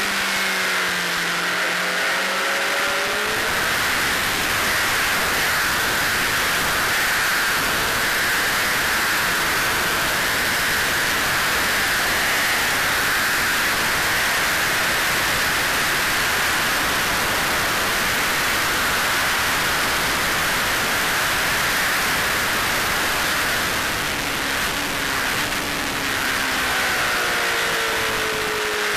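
Honda CBR600RR's inline-four engine running hard at track speed, mostly buried under loud wind rush over the bike-mounted camera. The engine note glides up and down through the first few seconds and again near the end, as the rider shifts and changes speed.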